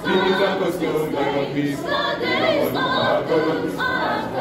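Large choir of men and women singing a gospel hymn together, many voices blending in full, steady song.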